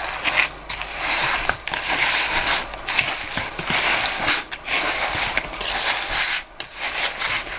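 A hand kneading raw minced pork mixed with breadcrumbs and spices in a plastic bowl: irregular squishing and crackling with short breaks.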